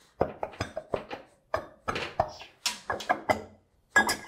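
Stainless steel cover of a Waukesha Universal 2 PD pump being worked off its studs: a rapid, irregular run of metal knocks and scrapes, then a sharper metallic clink that rings briefly about four seconds in.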